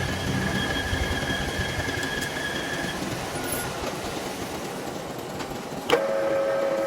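Metal lathe running during work on a bush, with steady machine noise and a thin whine that stops about three seconds in. Near the end a sharp knock, then a new lower steady whine starts.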